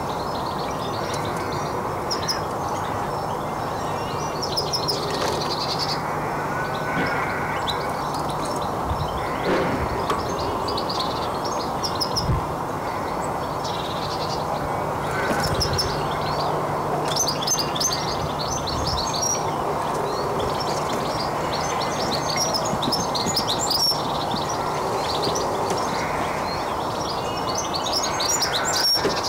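Small garden birds chirping and singing in bursts of quick high notes, busiest past the middle and again near the end, over a steady low background noise.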